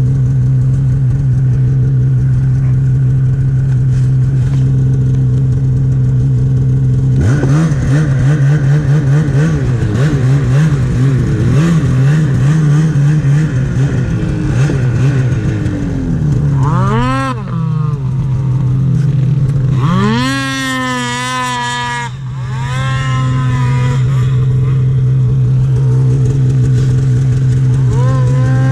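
Snowmobile engine running steadily, with wavering and rising pitch through the middle as it is revved.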